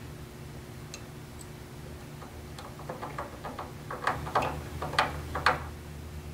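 Light clicks and taps of small screws being threaded in and tightened with a hand tool, sparse at first, then quicker and louder from about three to five and a half seconds in. A steady low hum runs underneath.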